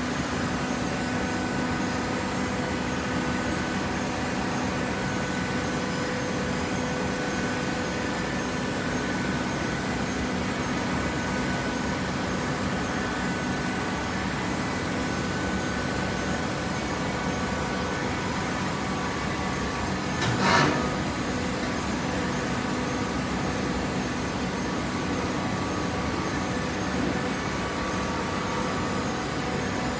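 Vertical hydraulic baler running: a steady motor-and-pump hum with a few held tones, and one sharp clunk about two-thirds of the way through.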